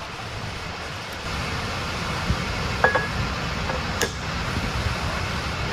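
Steady fan-like background noise, with a few light metal clinks and one sharp click about four seconds in, as a steel drive yoke is slid down onto the splined output shaft of an Eaton Fuller 13-speed transmission's auxiliary section.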